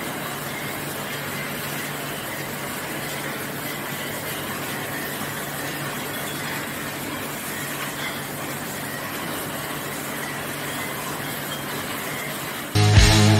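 1992 Nagema Varia 32 rotary bottle pressure filler with screw capper running steadily in production, a dense even machine noise with a constant low hum. Loud music starts abruptly just before the end.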